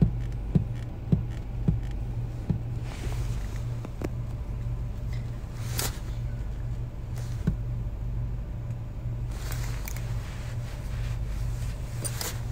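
Steady low hum of a car cabin, with a few light knocks and clicks, most of them in the first two seconds.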